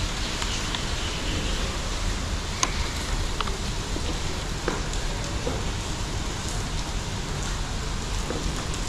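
A steady, even hiss with a few light clicks and taps of a hand tool on the scooter's headset screws as they are tightened by hand.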